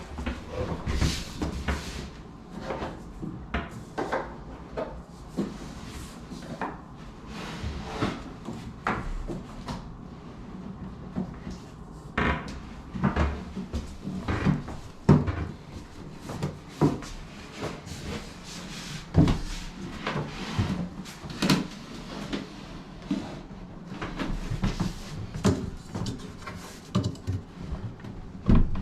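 Irregular wooden knocks and clunks as a bathroom vanity cabinet is shifted and bumped into position.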